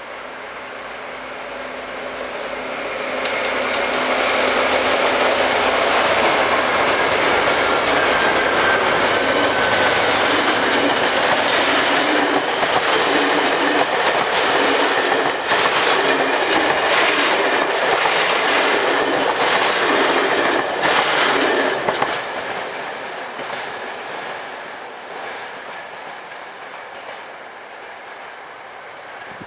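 Freight train passing close by: the noise builds over the first few seconds, the wagons' wheels clatter steadily with quick clicks over the rail joints for most of the pass, and it fades away over the last several seconds as the train moves off.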